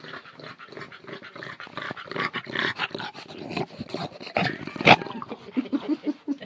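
A bulldog snuffling and breathing noisily right up against the phone, with rubbing noises and a sharp knock about five seconds in as the phone is bumped. Near the end comes a quick run of short grunting breaths.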